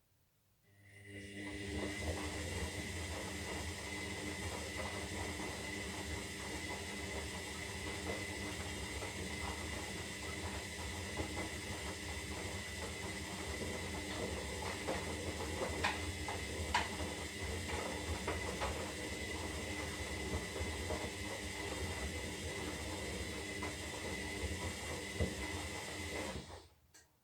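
Zanussi Lindo 300 washing machine running mid-cycle on a 60 °C synthetic wash: a steady mechanical hum with a high whine and water hiss starts about a second in, carries a few light clicks, and cuts off shortly before the end.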